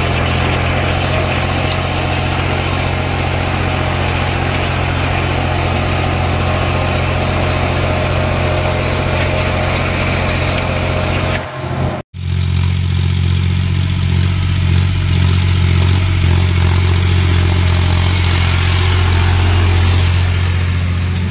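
John Deere 5105 tractor's three-cylinder diesel engine running steadily. After a short break about halfway through, it carries on pulling a disc harrow through the soil.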